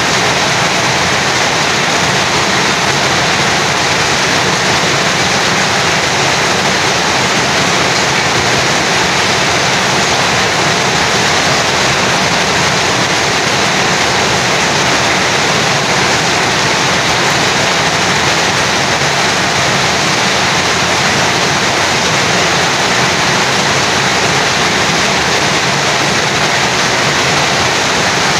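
Heavy rain falling steadily, with water streaming and dripping off a roof edge. The sound is a loud, even hiss with no breaks.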